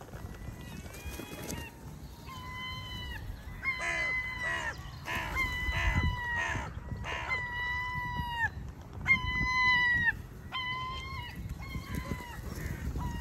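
Several crows cawing, a string of about a dozen drawn-out, even-pitched caws that dip at the end, with harsher caws overlapping in the middle.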